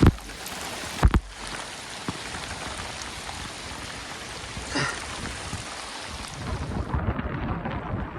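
Heavy rain hissing steadily, with two sharp, loud cracks about a second apart at the start. Near the end the hiss thins to a lower rumble.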